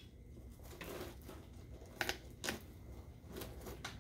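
Light clicks and knocks from the folding frame of a Wonderfold W4 Elite stroller wagon as it is opened up. Two sharp clicks come about two seconds in, half a second apart, and fainter ones follow.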